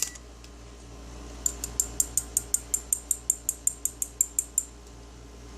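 A quick, even run of about eighteen sharp, high-pitched clicks, about six a second, starting about a second and a half in: a multimeter's function selector being turned through its detents.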